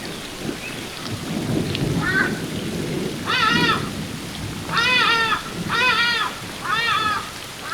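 An ibis calling: a run of about five calls, roughly one a second, starting about two seconds in and louder after the first, each one rising and falling in pitch. Underneath is the steady rush of a waterfall.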